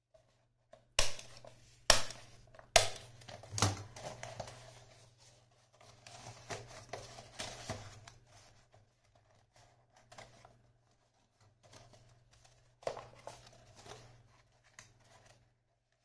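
A small handheld stapler snapping shut four times about a second apart, driving staples through the pleated paper fan and cardboard. After that, folded paper crinkles and rustles as the fan is handled, with one more sharp click near the end.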